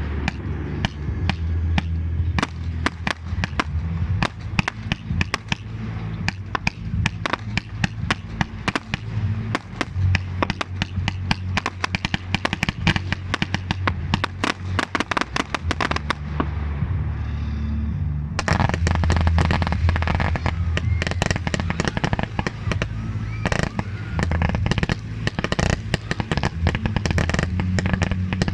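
Fireworks display: a dense, continuous barrage of sharp bangs and crackles over a deep, steady rumble of booms. The sharp reports thin out briefly about sixteen seconds in, then come thick again about two seconds later.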